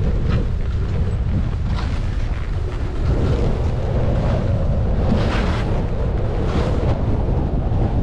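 Wind buffeting a skier's microphone, with skis hissing over packed snow and two louder edge scrapes about five and six and a half seconds in.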